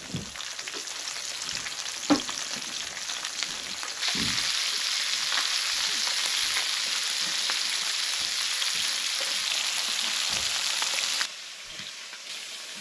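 Fish frying in a skillet on a gas stove, with a steady sizzle that grows louder about four seconds in and drops off near the end. A short thump sounds about two seconds in.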